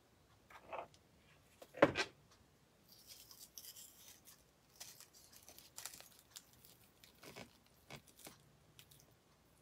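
A single knock about two seconds in, likely the hot glue gun being set down, then faint, scratchy crackling and rustling as a styrofoam piece is handled and pressed down into a paper cupcake cup.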